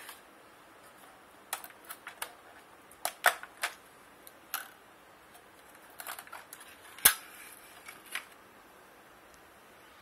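Scattered clicks and snaps of a microwave oven's plastic control-panel housing being handled while its circuit board is unclipped and pulled out, with the sharpest snap about seven seconds in.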